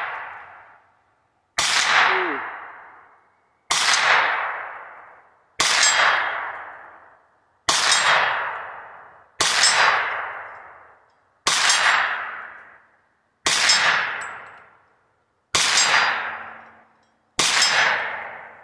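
Hi-Point 995 9mm carbine with a muzzle brake, fired nine times at an even, unhurried pace about two seconds apart. Each shot is a sharp crack followed by a long fading echo.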